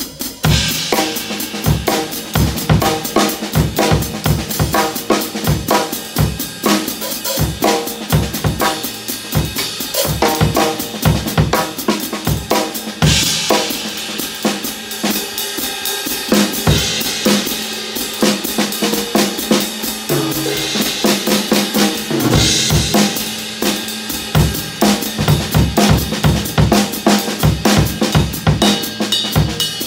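Drum kit played with sticks in a steady groove: bass drum, snare and closed hi-hat, with a few brighter cymbal washes opening up now and then.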